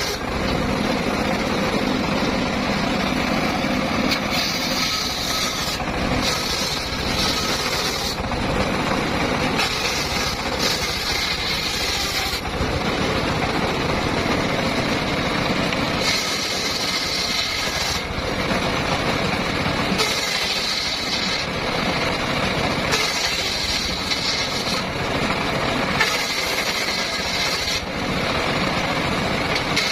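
Engine-driven circular saw running steadily as it cuts wood, with a higher hiss that comes and goes every couple of seconds over the constant engine sound.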